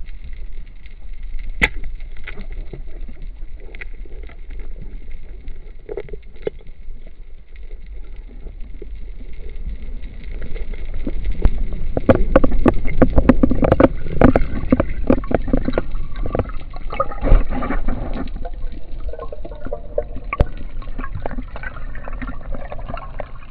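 Underwater sound picked up by a camera: water churning and gurgling over a low rumble, with scattered knocks and clicks. It grows louder and busier with dense clicking from about twelve to eighteen seconds in, then settles.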